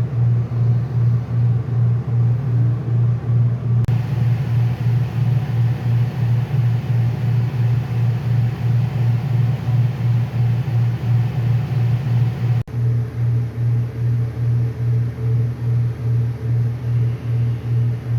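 A loud, low mechanical hum that swells and fades evenly about two to three times a second, with a brief dropout about twelve and a half seconds in.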